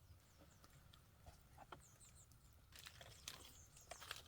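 Near silence: faint outdoor ambience with a few soft, high chirps, like small birds, and scattered light clicks.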